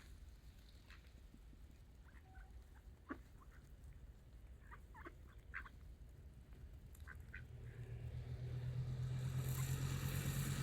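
Ducks giving short, scattered quacks and calls. Near the end a steady low motor hum comes in and grows louder.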